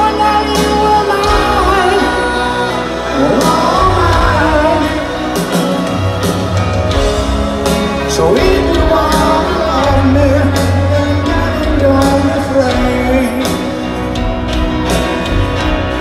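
Live rock ballad played through a stadium PA: a male lead voice singing over piano and the full band, heard from within the audience.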